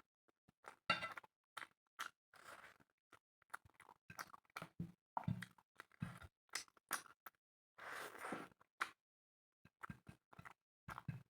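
Close-miked chewing and mouth sounds of a person eating spicy chicken with rice: irregular wet smacks and crunches, with a longer breathy noise about eight seconds in.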